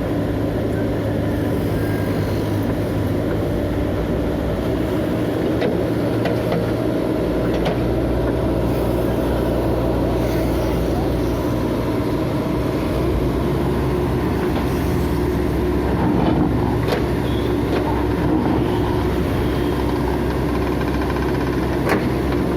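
Heavy demolition machine's diesel engine running steadily, with a few scattered knocks and clatters from the work.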